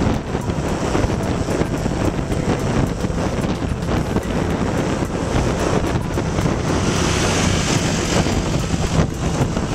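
Wind noise buffeting the microphone of a moving motorbike, with the bike's engine and road noise running underneath, steady throughout.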